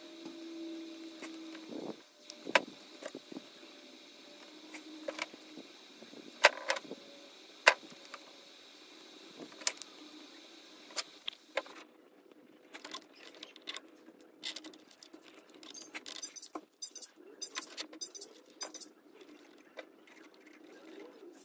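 Scattered light clicks and taps of small parts being handled: a plastic spur gear, a hobby knife and its adhesive backing, then the gear being fitted onto an RC car's drivetrain. The taps come closer together in the second half.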